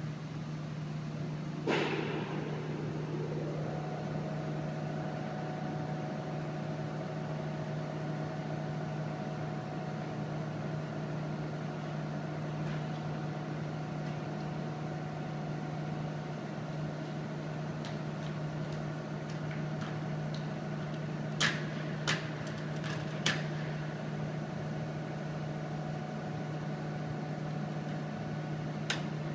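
Steady hum of machinery in a wind tunnel test section with a low drone. About two seconds in there is a knock, then a whine that rises in pitch and holds steady. A few sharp clicks come near the end.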